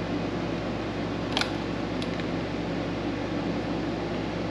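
Steady hum of a running fan, with one short click about a second and a half in.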